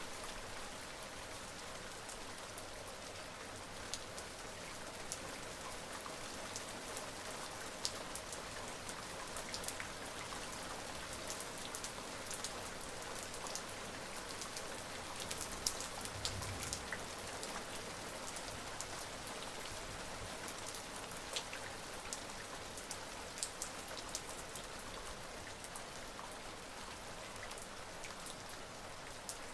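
Steady rain falling, with single drops striking a surface in sharp, scattered clicks throughout.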